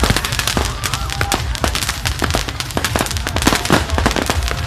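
Fireworks and firecrackers going off in a dense, irregular string of sharp bangs and pops, several a second.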